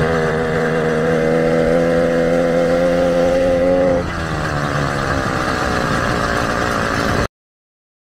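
80cc two-stroke motorized-bicycle engine running at a steady throttle, its pitch rising slightly, then dropping off about four seconds in. The sound cuts off suddenly near the end.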